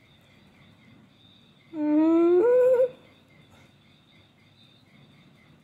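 A short closed-mouth hum, about a second long, held low and then rising in pitch near its end. A faint, steady insect chirring runs behind it.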